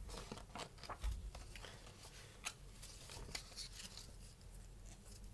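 Faint rustling and soft clicks of a picture book's paper pages being turned and handled, with a low bump about a second in.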